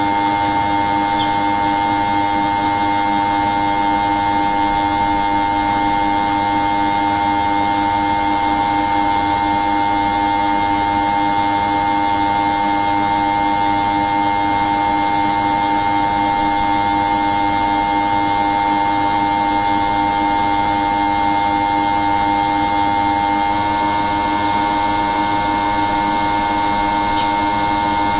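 A loud, steady machine hum made of several constant tones, one of which shifts slightly in pitch about 23 seconds in.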